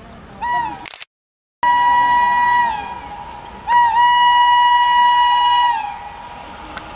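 Horn of an Indian Railways WAP-5 electric locomotive sounded as a warning: a short toot, then two long whistle-like blasts on one steady high note, the second about twice as long, each sagging in pitch as it dies away. The honk is weak and steam-whistle-like. There is a brief total dropout in the sound about a second in.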